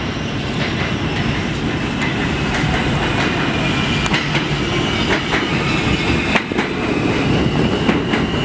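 New York City subway train (E train, R160-series cars) pulling into an underground station and passing close by. It rumbles steadily while the wheels click over rail joints, and a thin high whine holds from a few seconds in.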